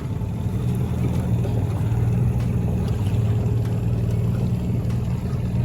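Motorboat engine running steadily at low trolling speed, a low, even hum.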